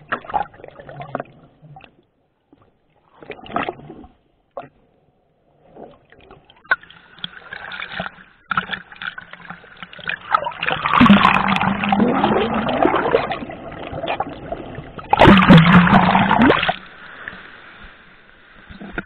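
Water splashing and sloshing: scattered small splashes at first, then two loud rushes of splashing starting about ten and fifteen seconds in.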